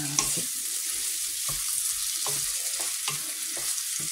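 Diced chicken, mushrooms, peppers, onion and garlic sizzling in hot olive oil in an enamelled frying pan, stirred with a wooden spatula that scrapes and taps the pan about every half second.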